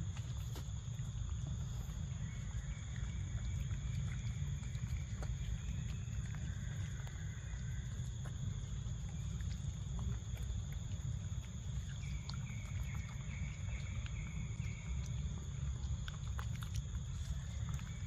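Macaques eating mango: scattered small clicks of chewing and handling fruit over a steady high-pitched drone and a low rumble.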